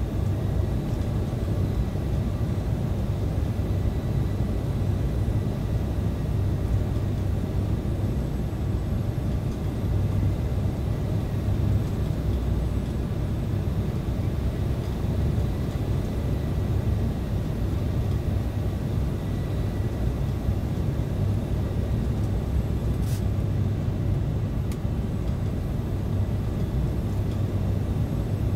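Steady cabin noise of an Embraer E170 airliner on final approach: a low rumble from its GE CF34-8E turbofan engines and the rush of air around the fuselage, heard from inside the cabin, with a faint steady high whine. One brief click in the last third.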